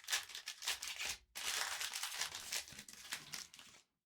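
Wrapper of a trading card pack crinkling and being torn open by hand, in two stretches of rustling with a short pause about a second in, stopping abruptly near the end.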